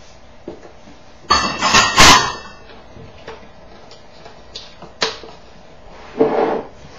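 Kitchen items being handled on a counter: a loud rattling clatter about a second in, a sharp click around five seconds, and a short knock near the end.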